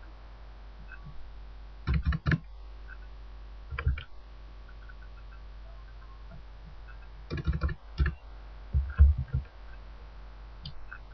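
Computer keyboard keystrokes and mouse clicks in a few short clusters, over a steady low hum.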